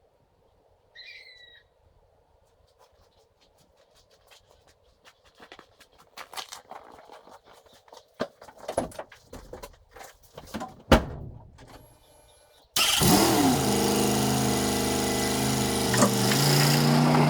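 Clatter and knocks of things being moved about, with a sharp bang about two-thirds of the way in. Then an engine starts up abruptly and runs steadily and loudly.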